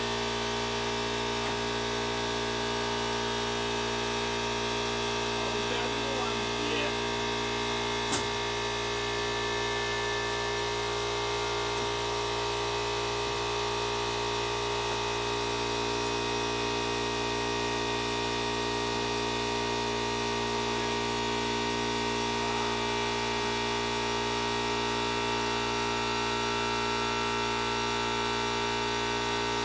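Steady electrical mains hum and buzz, unchanging throughout, with a single sharp click about eight seconds in.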